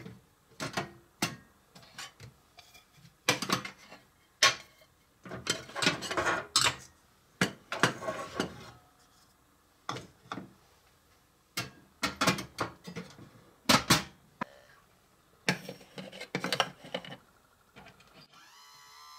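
Handling noise in a toy kitchen: small cabinet doors being opened and plastic mixing bowls lifted out and set down on the counter, a run of irregular clacks, knocks and rubs with short pauses between. Near the end it gives way to a steady faint hum.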